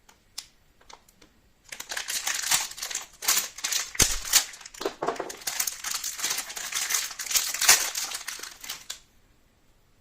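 A rapid, irregular run of sharp clicks and rattles, as of small hard parts being handled and knocked together, starting about two seconds in and stopping about a second before the end, with one heavier knock about four seconds in.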